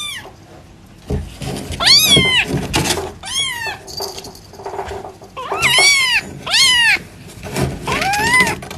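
A domestic cat meowing loudly again and again, about six drawn-out meows, each rising and then falling in pitch.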